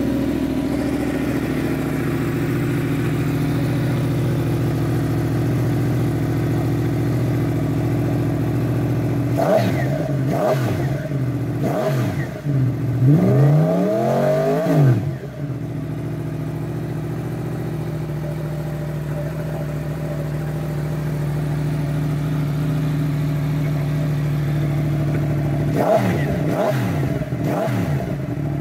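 Yamaha MT-10's crossplane inline-four idling at about 1,500 rpm through an SC-Project titanium-and-carbon slip-on exhaust. About ten seconds in it takes several quick throttle blips and one longer rev that rises and falls, then settles back to idle, with three more short blips near the end. The note is moderate, not too loud, because only the slip-on can is changed and the stock headers and catalyst are kept.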